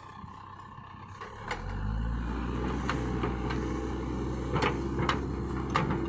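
Caterpillar backhoe loader's diesel engine running, picking up speed and getting louder about a second and a half in as the hydraulic backhoe arm lowers the bucket. Several sharp metallic clanks come from the arm and bucket linkage.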